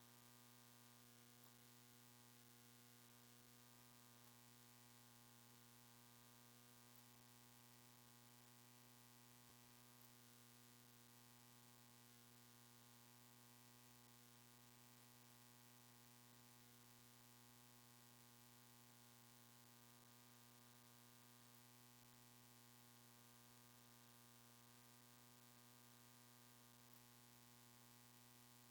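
Near silence: a faint, unchanging electrical hum with a stack of steady tones over a low hiss.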